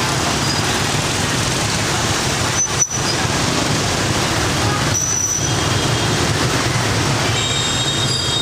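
Steady traffic noise from a busy street, with a brief break just before three seconds in.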